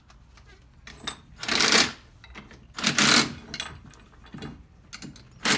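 Ratchet wrench clicking in three short bursts, about a second and a half apart, while tightening the bolts of a shifter cable bracket.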